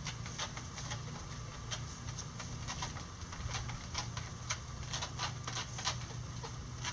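Chickens scratching and pecking in dry leaf litter: irregular light ticks and crackles, denser in the second half, over a steady low hum.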